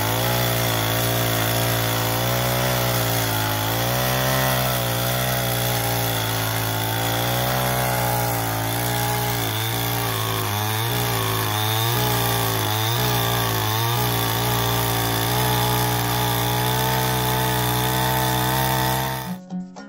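Two-stroke petrol chainsaw running at full throttle, cutting through a log. Its engine note dips and recovers several times in the middle as the chain bites, and it cuts off suddenly just before the end.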